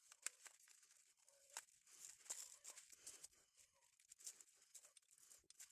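Near silence with a few faint, scattered clicks and light rustles.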